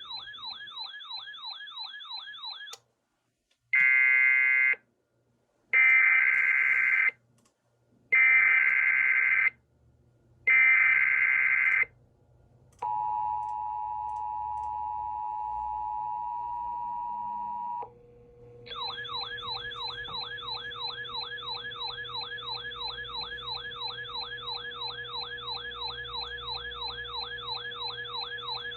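EAS alert sequence from an emergency alert decoder relaying a National Weather Service weekly test. A warbling electronic alert tone stops near 3 seconds in. Four roughly one-second bursts of screeching SAME digital header data follow, then a steady two-tone attention signal for about five seconds, and the warbling alert tone starts again over a steady hum about two-thirds of the way through.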